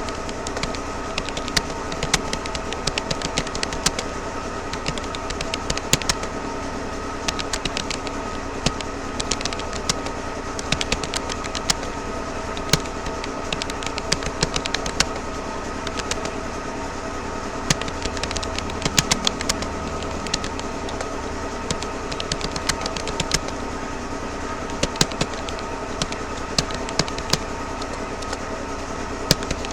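Rapoo computer keyboard being typed on at a steady touch-typing pace: irregular runs of sharp key clicks with brief pauses between words. A constant hum with a few steady tones sits underneath.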